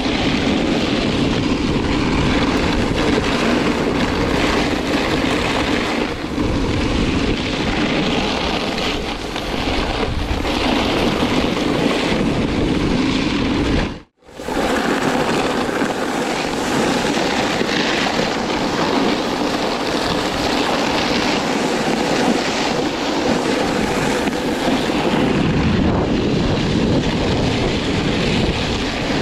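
Wind rushing over an action camera's microphone together with a snowboard's edges scraping over packed snow while riding downhill. It is a steady, loud noise that drops out briefly about halfway through and then picks up again.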